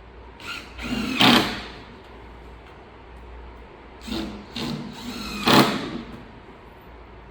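Cordless drill-driver with a PZ2 bit driving screws into racking panels: two short runs of about a second and a half each, the second about four seconds in, each ending louder as the screw seats.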